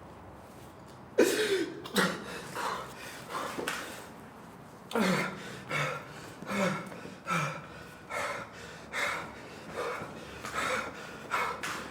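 A person's voice in short, sharp gasping bursts, each with a falling pitch, repeating about once or twice a second from about a second in, with a brief pause near the middle.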